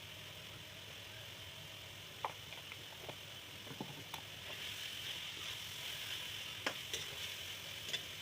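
Ground spices frying in hot oil in a pan, a steady sizzle that grows louder from about halfway, with a few light knocks and clicks.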